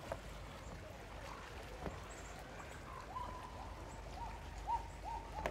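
Quiet outdoor ambience: a low steady rumble and a few soft clicks, with faint, distant voice-like sounds in the last two or three seconds.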